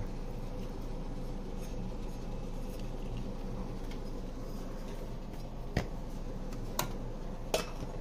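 Light metal clinks and knocks as the lamp's round metal base is handled against a metal tool chest: three sharp ones in the last couple of seconds, over a steady low hum.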